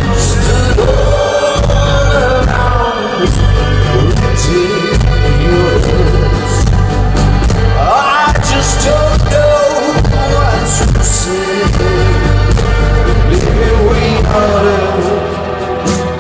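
Live rock band playing loud through a concert PA: heavy bass and drums with cymbal hits, guitar and strings.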